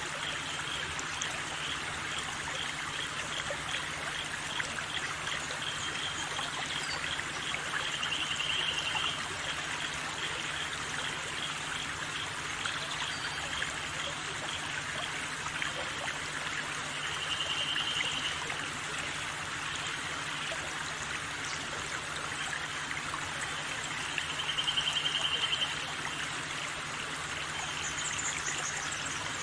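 A stream of water flowing steadily, with short high trills heard three times over it.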